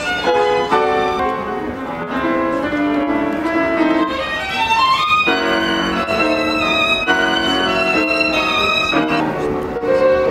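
Violin played live, a melody of held and moving notes with a quick rising run about four to five seconds in.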